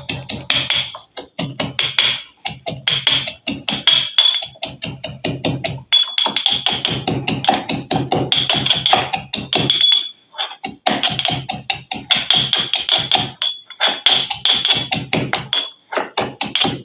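Pestle pounding garlic and ginger in a small steel mortar: rapid, repeated metal-on-metal strikes with a ringing edge, over background music.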